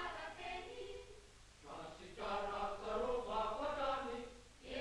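A choir of voices singing, in two phrases with a short quieter break about a second and a half in.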